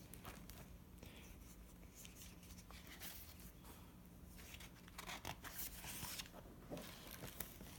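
Faint rustling and light clicks of a picture book being handled and opened, with a few louder rustles about five to six seconds in.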